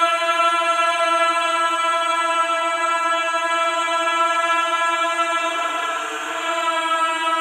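Ghostly wailing voice, a horror sound effect, holding one long steady note.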